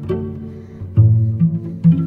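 Background music of low plucked string notes over held tones, with new notes struck about a second in, shortly after, and again near the end.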